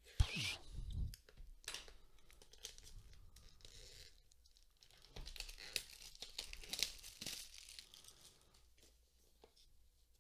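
The seal on a small cardboard box being cut with scissors and then picked at, peeled and torn off by hand, with the box rustling in the hands. The loudest stroke is right at the start, and a second busy stretch of tearing comes about five to seven seconds in.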